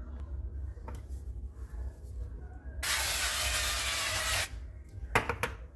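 Aerosol cooking spray hissing in one continuous burst of about a second and a half onto a disposable aluminium foil broiler pan, starting about halfway in. A few sharp clicks follow near the end.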